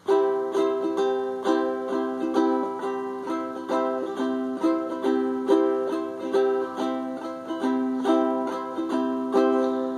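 Ukulele strummed in a steady 6/8 rhythm, in groups of three strokes with an accent on the first, and with upstrokes added between the down strokes.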